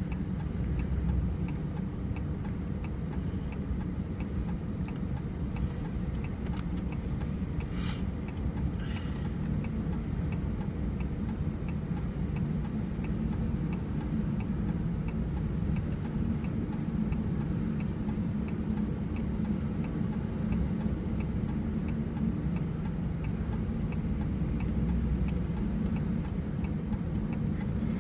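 Steady low engine and road rumble inside a moving vehicle's cab, with a turn-signal or hazard-light indicator clicking at an even rhythm. A single sharp knock about eight seconds in.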